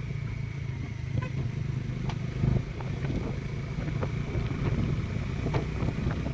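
Bajaj Dominar 400 motorcycle's single-cylinder engine running steadily while riding.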